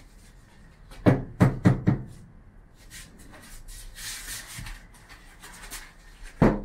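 Small hammer knocking nails into the balcony's wall panelling: four quick blows about a second in, a short rustle, then another blow near the end.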